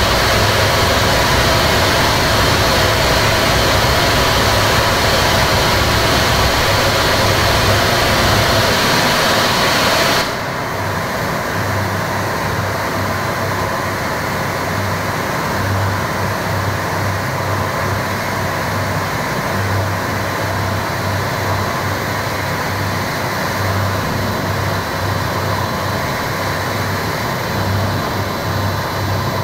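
Harsh noise from a small electronics rig: a Korg Kaossilator through a Boss MT-2 Metal Zone distortion pedal and a cheap radio through a Boss octave pedal, making a dense, loud wall of distorted noise. About ten seconds in, the hissing top end cuts out abruptly, leaving a lower distorted rumble with uneven low pulses.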